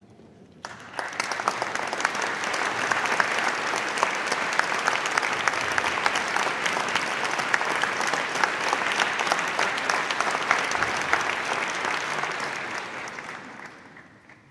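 Audience applauding, welcoming a pianist onto the stage before he plays. The clapping starts about a second in, holds steady, and fades out near the end.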